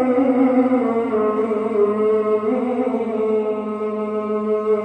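Male qari chanting Quran verses in melodic tilawah style into a handheld microphone, holding one long note that settles to a steady pitch after a slight fall at the start.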